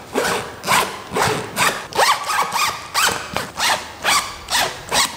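Hands rubbing back and forth over a soft nylon suitcase, a rasping stroke about three times a second.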